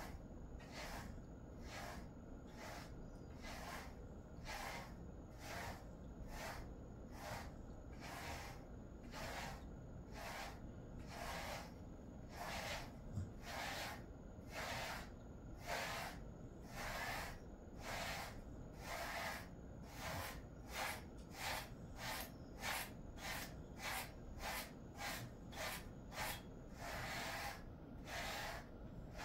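A grooming brush stroking through a Jindo mix's coat, a faint rhythmic swish about once a second, coming quicker near the end.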